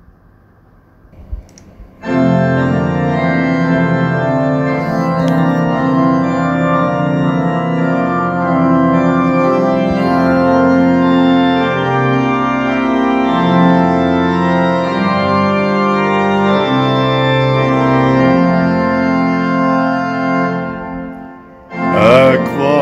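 Organ playing the introduction to a hymn in sustained, held chords, starting about two seconds in. A singing voice comes in near the end.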